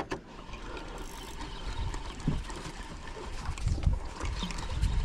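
Small open boat on the sea, water lapping and slapping against the hull, with a few irregular low thumps.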